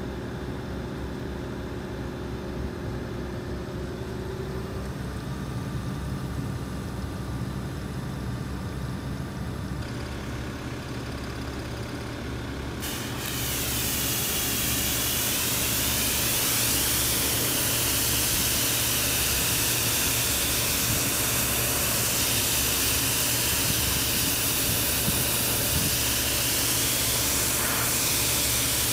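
A low steady hum, then about halfway through a Kärcher K3 Silent electric pressure washer starts spraying: a loud, steady hiss of the water jet striking the excavator's steel body panels, over the continuing hum.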